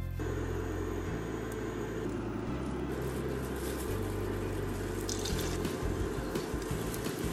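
Hot oil sizzling in a frying pan as ring-shaped patties are laid in, crackling more sharply from about five seconds in, once the first patty is in the oil.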